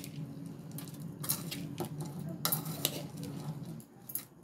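Puffed rice rustling and pattering as it is tossed and mixed in a stainless steel bowl, with irregular sharp clinks against the bowl. A steady low hum runs underneath and stops shortly before the end.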